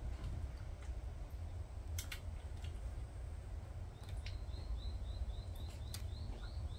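Steady low outdoor rumble with a few sharp clicks; from about four seconds in, a small bird calls a quick run of short, high, rising chirps, about four a second.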